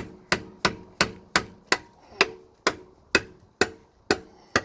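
A hammer striking a chisel wedged into the sealant seam of a Dana 35 rear differential cover, in steady blows about three a second, each with a short metallic ring. The blows are driving the chisel in to break the glued-on cover loose.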